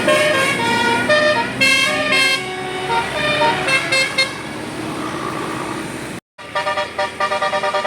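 Telolet Basuri bus horn playing a quick melody of pitched notes. The sound cuts off sharply about six seconds in, and another horn tune follows with rapid repeated notes.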